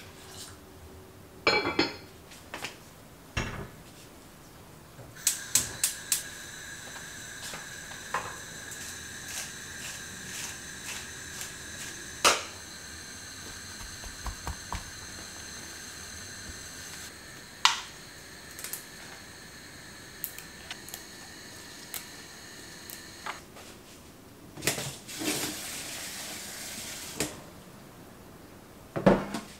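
Kitchen prep sounds: scattered clinks and knocks of metal utensils and dishes. A steady high-pitched ringing tone runs through the middle for about eighteen seconds, and near the end comes a few seconds of running tap water as greens are rinsed in a bowl at the sink.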